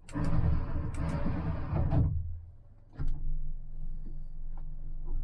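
Boat running underway: a steady engine hum under wind and water noise, with a few sharp clicks and knocks in the first two seconds. The noise drops away abruptly about two seconds in and comes back as a quieter steady hum about a second later.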